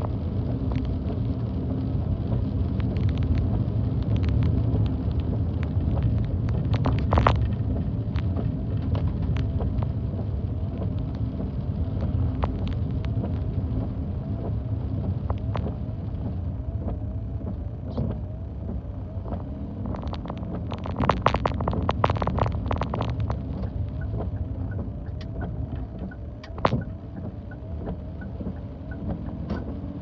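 Car driving along a wet road, heard from inside the cabin: a steady low rumble of engine and tyres, with a few sharp clicks about seven seconds in and a quick run of ticks a little past twenty seconds in.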